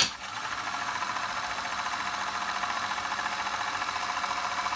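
Sony EL-5 Elcaset deck clicking into rewind, then the tape spooling back fast with a steady whirring hiss from the reel drive; the mechanism runs with its covers off. The restorer judges this rewind "not bad" after the mechanical restoration.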